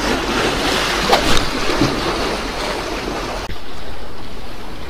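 Sea waves washing on the shore with wind on the microphone: a steady rushing noise whose hiss grows duller about three and a half seconds in.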